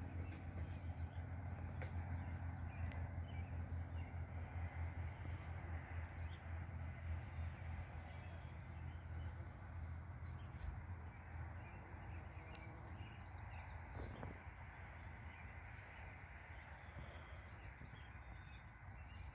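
Rural morning ambience: a steady low rumble that eases slightly toward the end, with faint bird calls.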